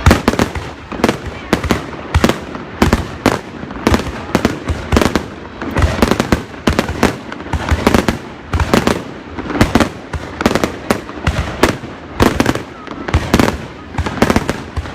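Fireworks going off in a rapid, irregular string of loud bangs, several a second, each with a short echoing tail.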